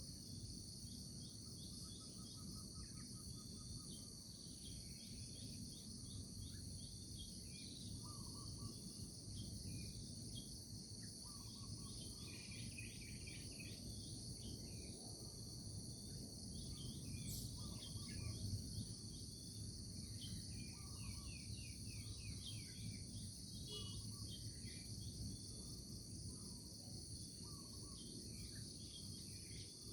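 Natural morning ambience: a steady chorus of insects keeps up a continuous high buzz, with short bird chirps scattered throughout and a low rumble underneath.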